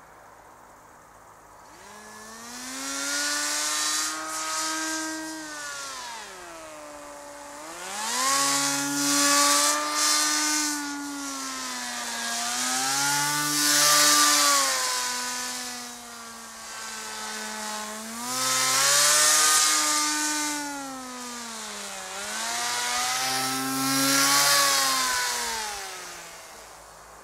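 Electric motor and propeller of an RC paramotor in flight: a buzzing drone that starts about two seconds in. Its pitch glides up and down, and it swells and fades about five times as the model circles nearer and farther.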